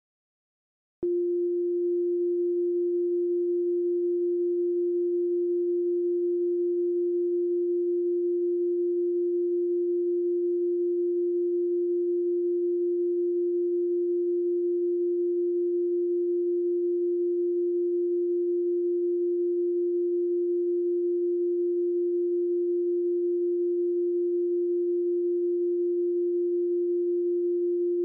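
Broadcast test tone sent with television colour bars: a single steady pure pitch that cuts in abruptly about a second in. It is the off-air signal of a TV station that has stopped broadcasting.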